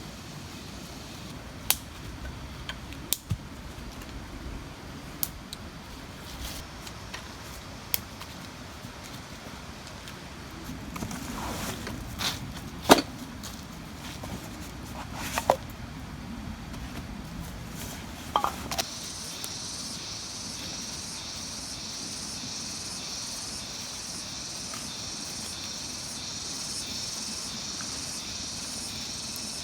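Scattered sharp knocks and clicks over a low outdoor rumble. About two-thirds of the way through the rumble drops away and a steady, high-pitched chorus of crickets takes over.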